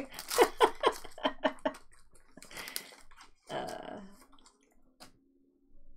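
Foil trading-card pack wrapper crinkling as it is torn open and pulled apart: a quick flurry of crackles in the first two seconds, then two short rustles.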